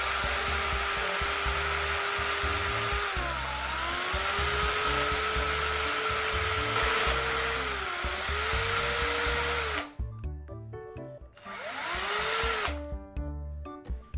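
Makita DF331D cordless drill spinning a graphite rod against sandpaper to grind it down: a steady motor whine whose pitch dips and recovers twice. It stops about ten seconds in, then runs again in one short burst a second or so later.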